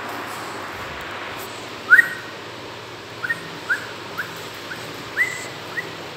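English bulldog puppies whimpering in a wire crate: a string of short, high, rising whines, about seven or eight over four seconds starting about two seconds in, over a steady background hiss.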